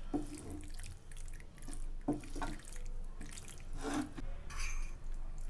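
Spatula stirring and folding boiled macaroni through a thick, creamy tomato sauce in a non-stick frying pan: wet squelching and sticky slapping, with a louder squelch about every two seconds.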